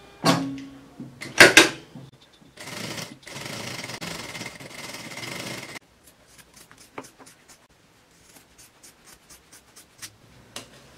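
Two knocks as the fabric is set under the needle, then an industrial sewing machine running steadily for about three seconds as it stitches. Scissors then snip repeatedly, trimming the fabric edges, through the last few seconds.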